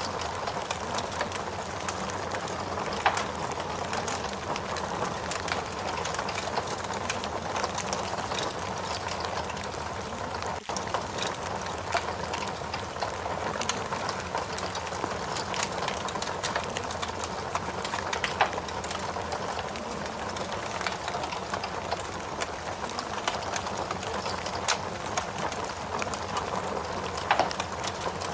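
Ambience of steady rain mixed with a crackling fire: an even hiss of rain with scattered sharp pops and crackles, dipping for an instant about ten seconds in.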